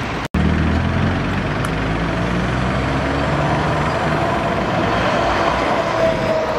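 Heavy truck engine idling steadily under general road-traffic noise, picking up after a brief cut in the sound near the start.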